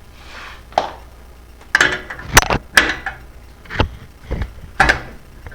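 Sharp metal clinks and knocks, about seven, irregularly spaced over a few seconds, some ringing briefly: a wrench being fitted to and worked on an oxygen sensor in the exhaust, loosening it.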